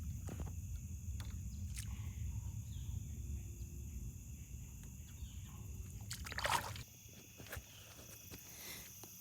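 Crickets trilling steadily, under a low rumble that stops about seven seconds in, with a few light knocks and a short noisy rustle just before the rumble ends.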